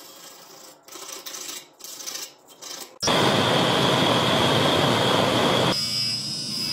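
A few short scraping strokes of a metal rod on the adjustable wrench's parts. About three seconds in, a gas torch flame starts suddenly with a loud, steady rush. Just before six seconds this changes to a bench buffing wheel running with a steady high whine as the wrench body is polished.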